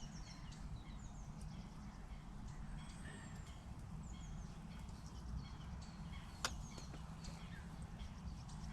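Small birds chirping faintly in short, scattered high notes over a steady low rumble, with one sharp click about six and a half seconds in.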